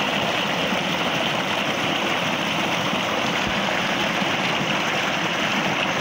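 Steady rush of water gushing from a tubewell's 3-inch discharge pipe and splashing into a concrete tank, the pump delivering at full flow.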